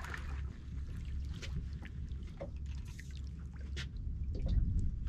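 Sea water lapping and splashing against a small boat's hull, with wind rumbling on the microphone and a scattering of light clicks.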